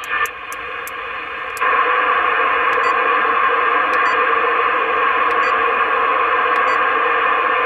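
Single-sideband CB radio receiver hissing with band static from its speaker while the channel knob is turned, with scattered clicks from the knob. The hiss jumps louder about one and a half seconds in and stays steady.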